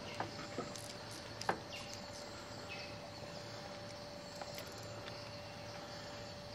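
Quiet bush ambience: a steady insect drone with a few faint bird chirps and a couple of light clicks.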